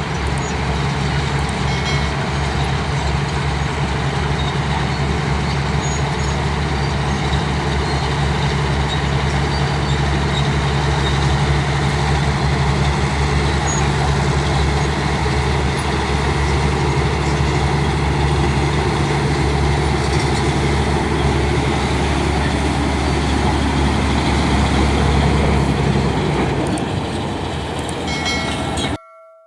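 Bulldozer's diesel engine running steadily with a deep, even rumble, cutting off abruptly near the end.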